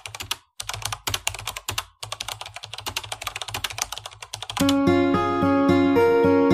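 Rapid keyboard-typing clicks, a sound effect that goes with text being spelled out letter by letter, broken by two short pauses. About four and a half seconds in they stop and plucked-string music with a steady beat starts.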